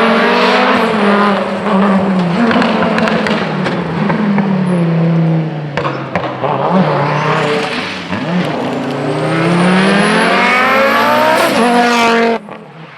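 Audi Quattro rally car's five-cylinder engine driven hard, its revs rising and falling for several seconds. Near the end comes one long climbing rev, after which the sound drops away sharply.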